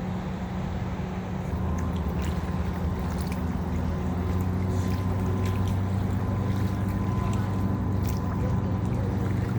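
Steady low motor drone that grows a little louder about one and a half seconds in, with a faint high whine over the middle of it and a few light clicks.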